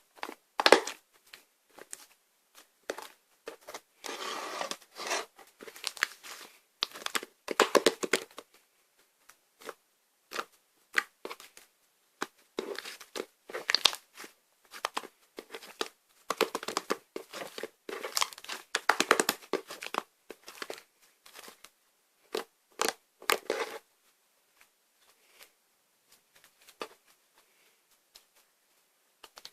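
Slime being squished and stretched by hand: irregular bursts of crackling and popping clicks, easing off into near quiet for the last few seconds.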